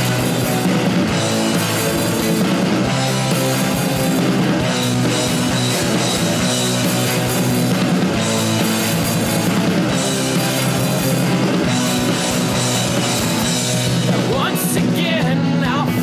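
Background rock music playing at a steady level, with a full band sound.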